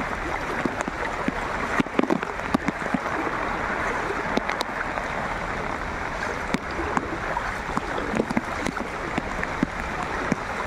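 Heavy rain falling onto a flooded street, a steady hiss of water with scattered sharp taps of drops close by.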